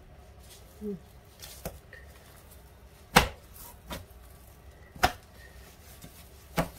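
About four short, sharp knocks on a wooden cutting board as a steamed vegan tofu-and-gluten sheet is handled on it, roughly every second and a half, the loudest about three and five seconds in.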